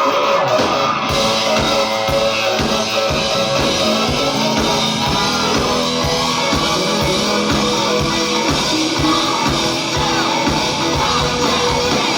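Rock band playing live: electric guitar, with the drum kit coming in on a steady beat right at the start.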